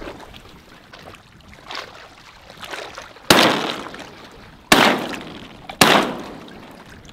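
Three shotgun shots in quick succession, the second about a second and a half after the first and the third about a second later, each fading out in a short echo.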